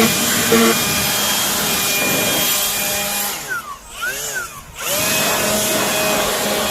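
A small motor running steadily with a hiss and a steady whine, dropping away briefly for about a second and a half near the middle before coming back.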